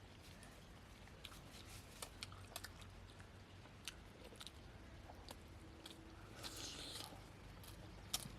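Faint eating sounds of people chewing and biting into poori with mutton curry: scattered small clicks and mouth noises, with a brief soft rustle about six and a half seconds in.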